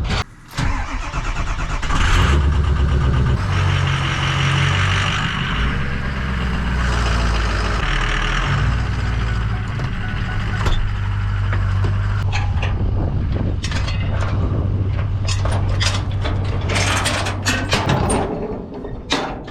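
A vehicle engine running, its pitch stepping up and down as it is revved and eased off, with a burst of rattling near the end.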